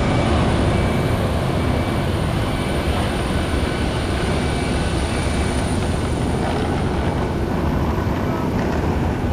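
Steady jet aircraft noise on an airport apron: a broad, even roar with a thin high-pitched whine above it.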